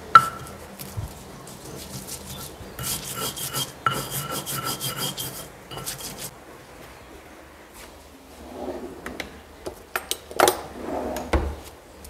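Ulekan pestle grinding spices in a cobek mortar: repeated rubbing and scraping strokes, busiest about three to five seconds in. A sharp knock comes right at the start and another near the end.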